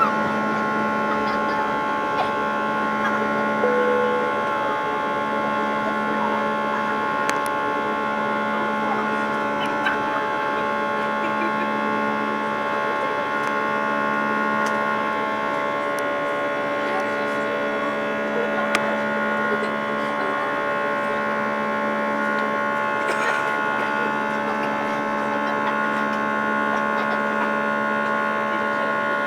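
Cabin drone of an Airbus A320 in flight: a loud, steady hum made of several steady tones, with a slow pulsing in the low drone about every two seconds.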